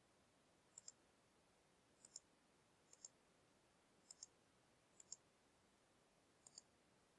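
Faint computer mouse clicks: six clicks about a second apart, each a quick double tick.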